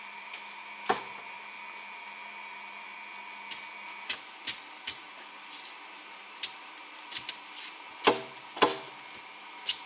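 Irregular sharp strikes of a hand tool on wood, about eight in all, the two loudest near the end with a short ringing note. Under them runs a steady high-pitched drone.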